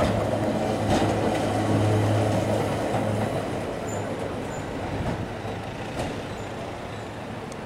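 Vintage electric tram rolling past and moving away. Its steady low motor hum is strongest for the first few seconds and then fades, with a few sharp clicks from the wheels and track.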